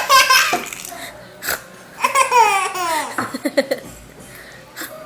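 Baby girl laughing: a short high laugh at the start, then about two seconds in a longer run of quick laughs that slides down in pitch and breaks into rapid pulses.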